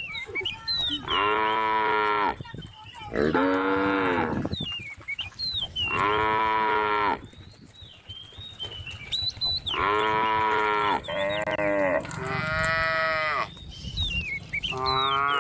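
Cattle mooing repeatedly: about seven drawn-out calls of a second or so each, with pauses between them, and three coming close together in the second half.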